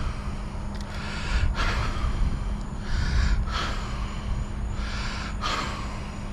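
A man breathing hard close to the microphone, a breath about every two seconds, over a low rumble and a steady low hum.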